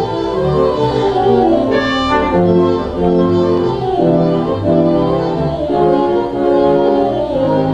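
Wurlitzer theatre pipe organ playing a run of full held chords that change about once a second.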